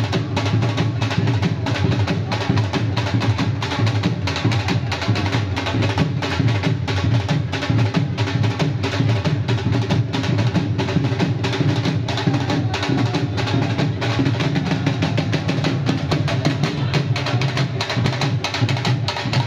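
Dhol drums beating a fast, dense bhangra rhythm with sticks, without a break.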